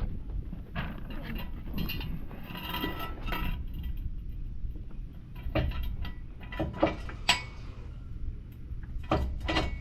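Scattered metallic clinks and knocks of tools and metal parts being handled, with a cluster of ringing clinks a few seconds in and sharper knocks in the second half.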